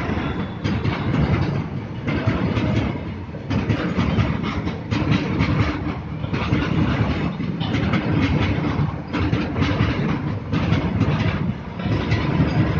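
Freight train of covered wagons rolling past at close range: a continuous rumble of steel wheels on the rails with a repeated clatter as the wheels pass over the rail joints.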